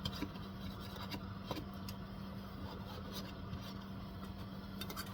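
A hand tool chipping and scraping material out of an object: scattered light clicks and scrapes over a steady low hum.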